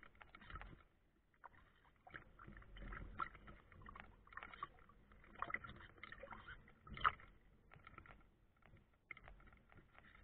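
Lake water splashing and slapping against the hull of a small radio-controlled model sailboat under way, heard close up from on board. The splashes come irregularly, with one sharper slap about seven seconds in.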